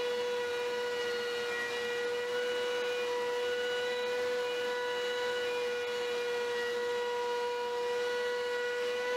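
Laguna PX12 portable planer with its QuadTech1 carbide-insert cutterhead taking a pass on a long board: a steady, high motor whine at one even pitch under the load of the cut.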